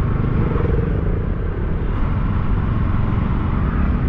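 Steady low rumble of riding along a road: wind buffeting the microphone mixed with road and vehicle noise, with no separate events standing out.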